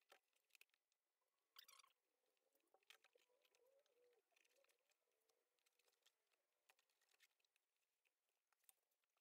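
Near silence, with faint scattered clicks and rustles of a chair's seat cover and plastic seat shell being handled as the cover is hooked on.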